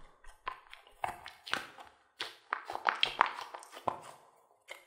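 Hands squeezing and pulling a soft stretchy rubber toy, making a string of short, irregular rubbing and tapping sounds.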